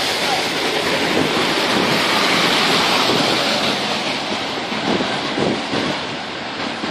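Rushing hiss of tyres on a rain-soaked road, swelling about two to three seconds in as a vehicle passes, then easing off.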